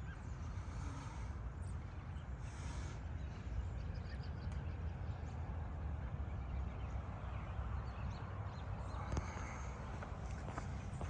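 Outdoor park ambience: a steady low rumble, with faint high calls and a few light ticks over it.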